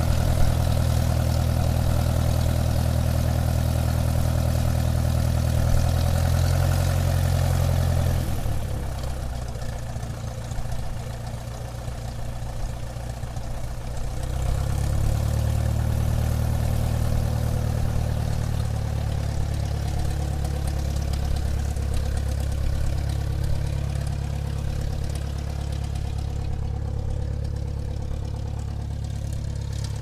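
Airplane taxiing on the ground, its engine running with a steady low drone. About eight seconds in the engine note drops back, and around fourteen seconds in it comes up again, then slowly eases off toward the end.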